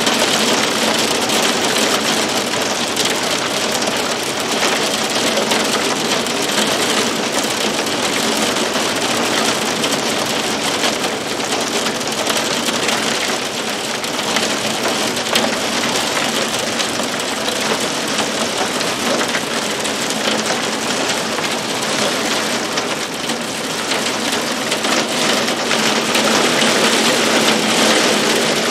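Heavy storm rain driving against a window pane: a loud, steady hiss with a dense patter of drops striking the glass.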